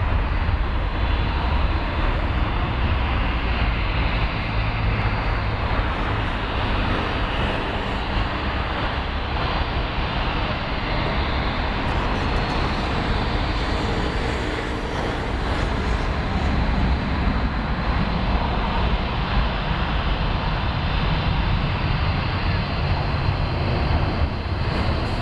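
Jet aircraft engine noise running steadily with a deep rumble underneath, without a clear rise or fall.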